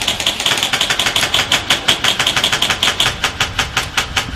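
Airsoft electric guns firing on full auto, a rapid, even clatter of shots, with a high steady whine under the shots for about the first three seconds.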